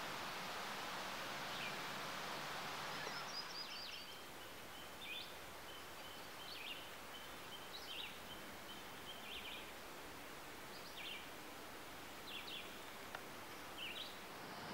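Wind rustling the leaves of the treetops for the first few seconds, then songbirds calling in short repeated chirps and trills, about one a second.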